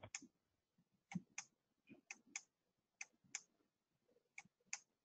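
Faint clicking at a computer while paging back through presentation slides: about a dozen short, sharp clicks, often in pairs, spaced unevenly.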